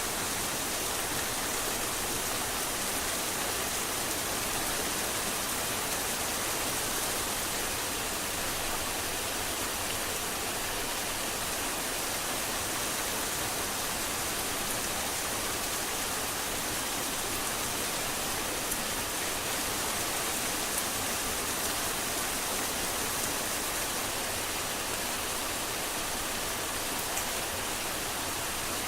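Heavy rain falling in a steady, even hiss, with a faint patter of drops.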